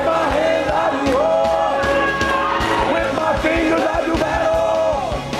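Live worship band music: voices singing and calling out over drums and instruments, with crowd voices mixed in.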